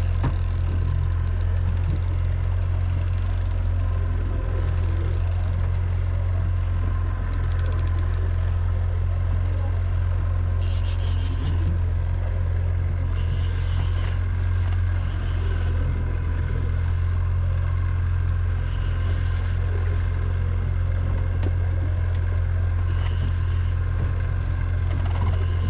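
Boat engine droning steadily at trolling speed, with a fishing reel's drag buzzing in several short bursts of about a second each as a hooked fish pulls line off.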